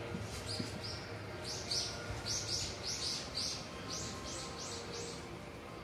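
A small bird chirping repeatedly, short high notes at about three a second that stop about five seconds in, over a faint steady hum.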